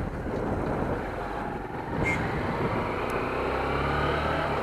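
Small motorcycle's engine running while riding, with road and wind noise. A steadier low engine note comes in about three and a half seconds in.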